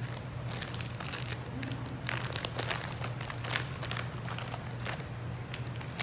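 Hands rustling and crinkling plastic bags of wool and tearing tufts of wool fibre apart to mix them, in irregular bursts that are busiest in the middle.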